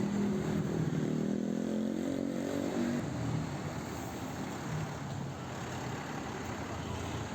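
A bus's engine drone as it passes close by, loudest in the first three seconds and sliding down in pitch as it goes past, then fading into fainter road traffic noise.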